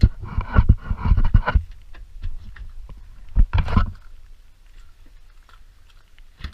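Irregular knocks and rustling, in a burst of about a second and a half and another short one near the middle, over a low rumble, then only scattered light ticks.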